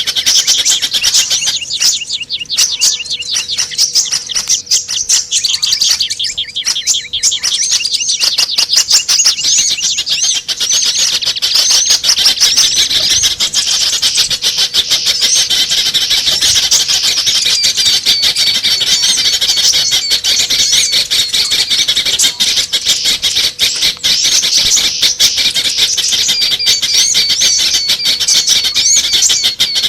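Many small birds chirping and twittering at high pitch, overlapping almost without pause, growing denser after the first several seconds: a mixed small-bird lure-call recording used to draw small birds in.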